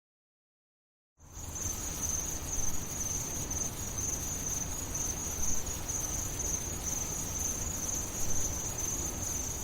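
Crickets chirring in one steady high-pitched trill over a faint hiss, starting abruptly about a second in after silence.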